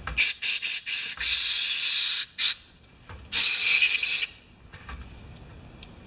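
Aerosol carburetor cleaner sprayed through a red extension straw into a small brass fuel shut-off valve to clear its passage. It hisses in a few short spurts, then two longer sprays of about a second each with a brief spurt between them.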